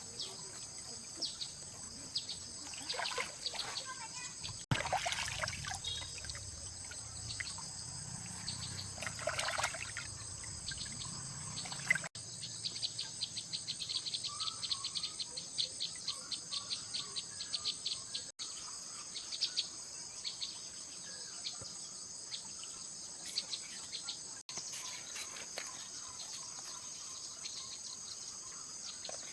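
Steady high-pitched chirping of insects such as crickets or cicadas, with scattered short scraping and handling noises and a fast run of ticks in the middle. The sound breaks off sharply several times, about every six seconds.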